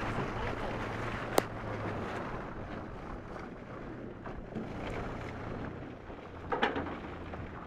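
Wind buffeting the microphone and water rushing along the hulls of a racing catamaran under sail, over a low steady hum. A single sharp knock comes about a second and a half in, and a brief louder burst of sound near the end.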